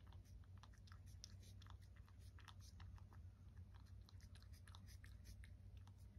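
Domestic cat eating from a dish: faint, irregular wet chewing clicks, several a second.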